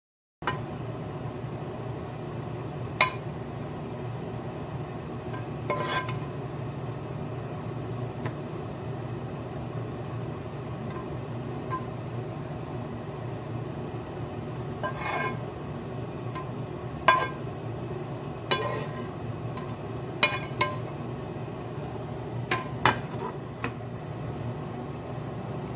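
A plastic spatula knocking and scraping against a frying pan and a ceramic plate as cooked chicken pieces are served out: about ten scattered clinks and knocks, most of them in the second half, over a steady low hum.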